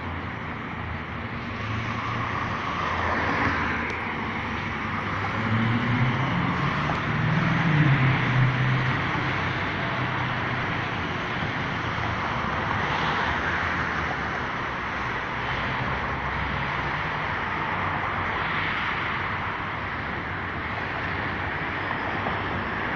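Steady road traffic noise from cars passing on a city road. About six seconds in a heavier vehicle's engine grows louder and rises in pitch as it passes, then fades back into the traffic.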